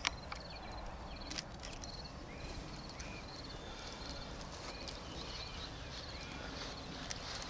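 Meadow ambience: low wind rumble on the microphone, faint repeated chirping calls, and a few sharp clicks as the tag is handled and fastened to the roe deer's leg.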